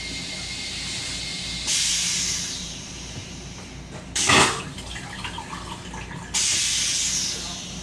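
Stainless-steel train toilet flushing: a hiss of rinse water, then a loud short whoosh about four seconds in, then another hiss of rinse water that cuts off near the end, over the steady low hum of the railcar.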